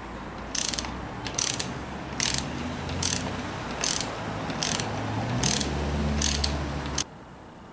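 Socket ratchet on an extension running a beadlock ring bolt down, its pawl rasping in a short burst on each swing, about eight strokes a little under a second apart. The sound cuts off suddenly near the end.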